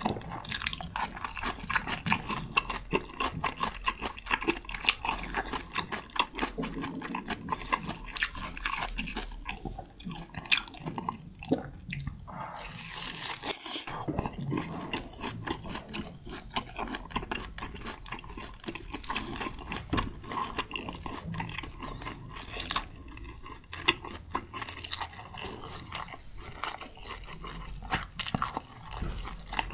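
Close-miked chewing and biting. The eater crunches pieces of bell pepper and chews tomahawk steak, with many short crisp crunches in quick succession.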